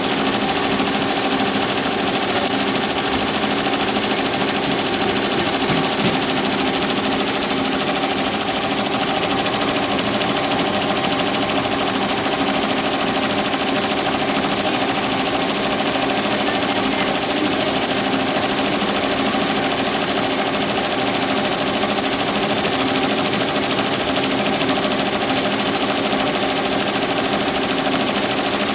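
Tajima TFMX C1501 embroidery machine running steadily and stitching, with the rattling sound it is making.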